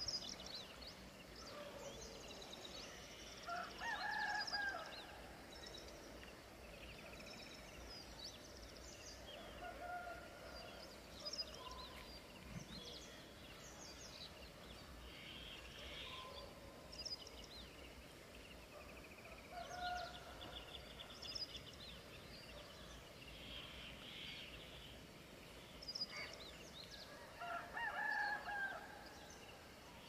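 A rooster crowing twice, about four seconds in and again near the end, over small birds chirping throughout.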